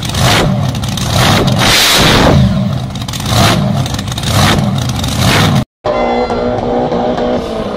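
Twin-engine supercharged dragster revved repeatedly in short blips of the throttle. After a sudden break near the end, a drag car's engine runs more steadily at the start line.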